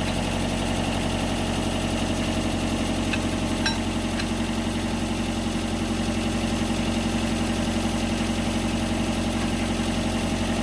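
Mitsubishi MS030 mini excavator's diesel engine idling steadily, with a few light clicks about three to four seconds in.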